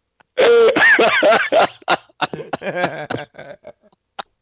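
People laughing hard in a run of short bursts for about three seconds, then trailing off.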